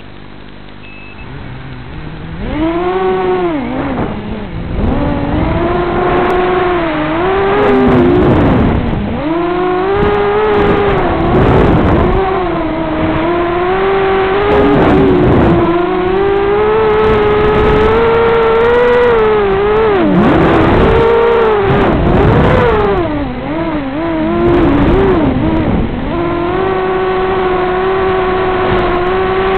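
Racing miniquad's four Sunnysky 2204 2300KV brushless motors spinning DAL 5045 props: a whine that is quiet at first, comes up about two seconds in, and rises and falls in pitch with the throttle, dropping sharply several times as the quad turns and brakes.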